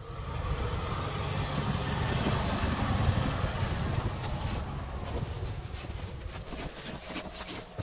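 Toyota Land Cruiser 100's 4.2-litre diesel engine running under load as its tyres crunch through deep snow while it drives past. It is loudest about three seconds in and fades as it moves away.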